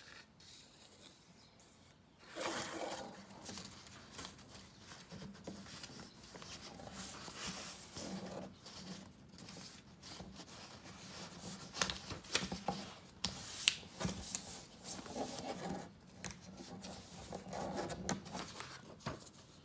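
Sheet of paper being folded and creased by hand: rustling and scraping against a tabletop with occasional sharp crackles, starting about two seconds in.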